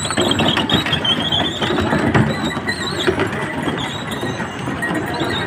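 Wooden axles of passing ox carts squealing, the 'singing' of the carro de boi: a high whine over the clatter of the carts and street noise.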